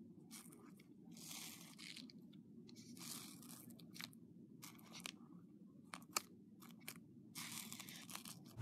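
Hands pressing and pulling sticky slime in a plastic tub: soft crackles and pops at irregular intervals, with a few sharp clicks about two-thirds of the way through, over a faint steady hum.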